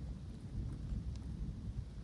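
Thunderstorm in woodland: a low, unbroken rumble of thunder over light rain, with a few scattered raindrop ticks.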